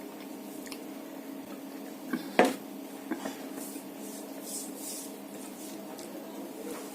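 Eating sounds at a plate of rice and fish curry: soft rubbing and squishing of food with one sharp clink on the plate about two and a half seconds in, and a few smaller clicks. A steady low hum runs underneath.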